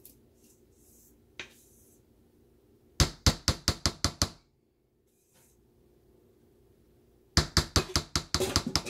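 Two runs of quick, sharp knocks on metal bakeware, each about a second and a half long and a few seconds apart, as batter is knocked loose into a metal tube cake pan.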